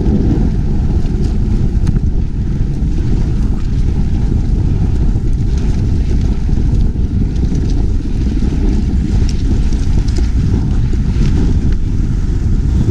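Wind buffeting an action camera's microphone as a downhill mountain bike rides fast over loose gravel, a loud, steady low rumble with faint scattered ticks of stones and bike rattle.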